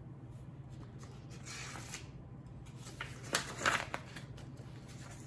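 Paper rustling as a picture book's page is turned: a few soft brushing sounds, the loudest a little past the middle.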